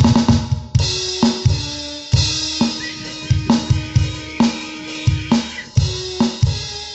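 Music with a drum kit playing a steady beat of about two hits a second, with cymbals and held notes over it.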